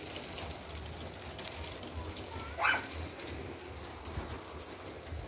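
Steady patter of rain falling outdoors after a hailstorm. One short, high yelping call comes about two and a half seconds in.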